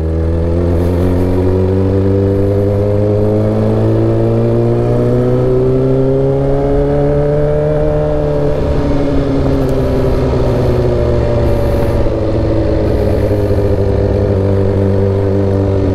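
Suzuki GSX-R1000 K8's inline-four engine running under way. Its pitch climbs slowly for about eight seconds, then eases back down just as slowly.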